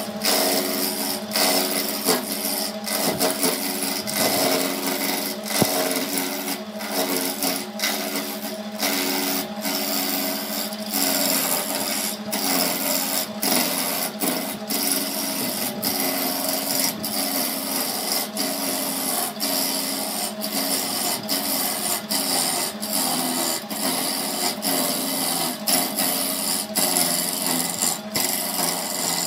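Wood lathe running as a hand-held turning tool cuts a spinning wood blank: a steady motor hum under a continuous scraping cutting noise, broken by many brief momentary dropouts.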